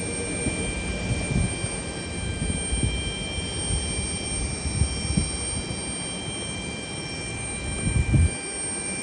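Distant Airbus A350-900's Rolls-Royce Trent XWB turbofans at takeoff thrust during the takeoff roll: a steady jet rumble. Irregular low thumps of wind on the microphone come through it, the strongest about eight seconds in.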